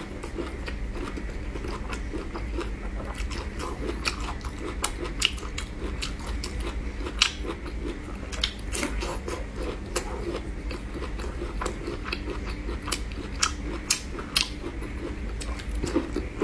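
Close-miked eating: a person biting and chewing, with many irregular sharp, crunchy clicks.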